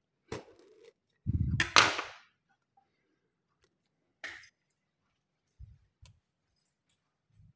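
Kitchen knife working into a durian's spiny husk: a click, then a burst of scraping and a loud sharp crack about a second and a half in, and a lighter click a few seconds later, followed by a few soft thumps.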